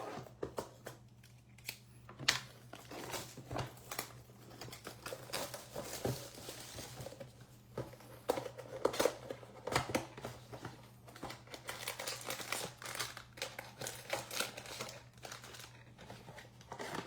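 A sealed trading card box being opened by hand: plastic shrink-wrap crinkling and tearing, with many sharp clicks and rustles of cardboard and packs being handled.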